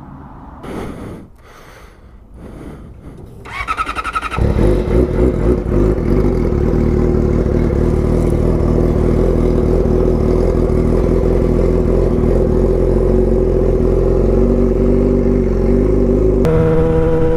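A 2006 Yamaha R6's inline-four engine, quiet at first, then revving up about four seconds in and running loud at a steady pitch. Its note changes near the end.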